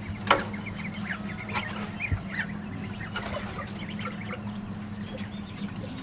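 Domestic chickens clucking in the background, with scattered short bird calls, over a steady low hum; a single sharp click about a third of a second in.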